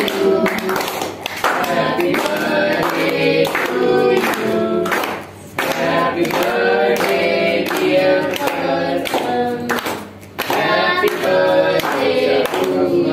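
Several voices singing a song with music, with hand clapping underneath; the song pauses briefly twice between phrases.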